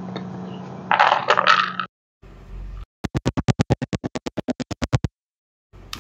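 About a second of clattery tool noise over a steady low hum, then after an abrupt cut a rapid electronic pulsing, about ten beats a second for two seconds: a synthesized music or transition effect.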